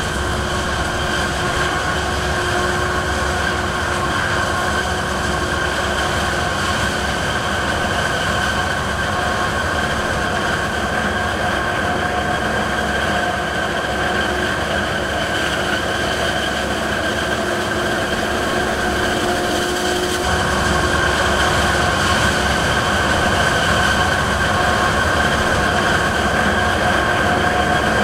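Forage harvester and tractors running under load while chopping maize: a continuous mechanical drone with a steady high whine over it. It gets a little louder about 20 seconds in.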